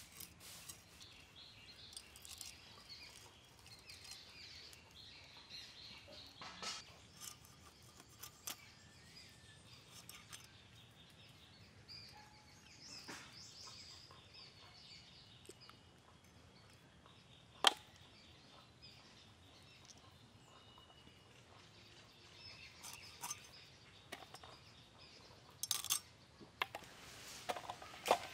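Fish being scaled and cut on a bonti, a curved blade fixed upright in a wooden block: scattered faint scrapes and clicks, one sharp click about two-thirds of the way through, and a cluster of knocks near the end. Birds chirp faintly in the background.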